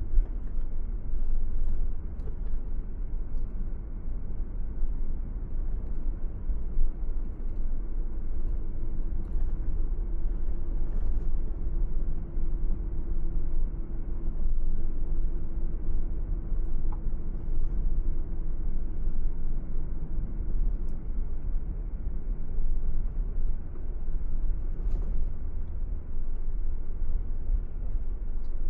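Car driving at a steady speed: a continuous low rumble of road and engine noise, with a faint steady hum over it.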